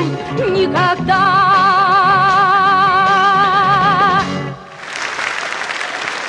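A singer holds the song's final note with vibrato over the backing music, and the music ends about four seconds in. Applause follows.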